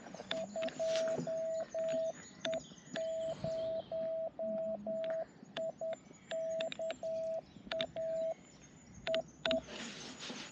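Morse code from an amateur radio transceiver: one steady tone keyed on and off in dots and dashes, with sharp clicks between the characters. A hiss rises near the end.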